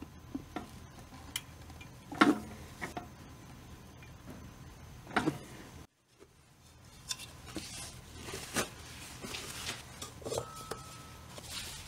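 Handling noises of a 3D-printed plastic part and a plywood piece being turned and set down: light rubbing and scattered knocks, the loudest about two seconds in and another about five seconds in.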